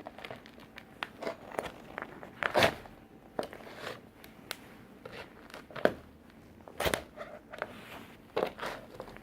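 Toy tractor being crushed under work boots: an irregular run of cracks, snaps and crunches, with a few sharper, louder cracks among them.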